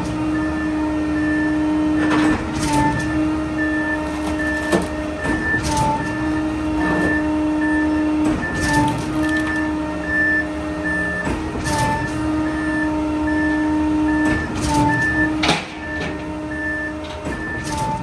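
A ready-mix concrete truck running with a steady mechanical hum and a higher tone that pulses on and off. Sharp metal clanks and knocks break in every second or two.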